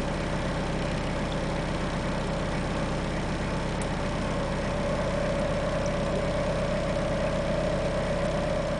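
Van engine idling steadily, with a steady mid-pitched whine that grows slightly louder about halfway through.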